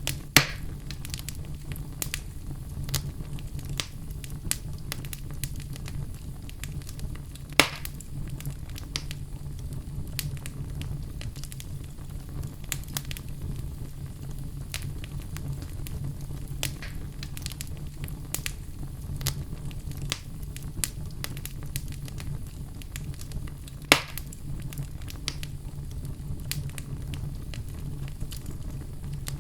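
Outdoor fire burning with continual small crackles over a low steady rumble. Three sharp, louder pops stand out: near the start, about a quarter of the way through, and about four-fifths of the way through.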